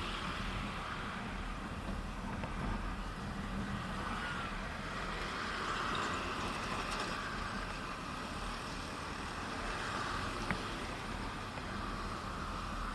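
Steady ride noise from a motor scooter under way: the engine running evenly with wind and road noise on the microphone.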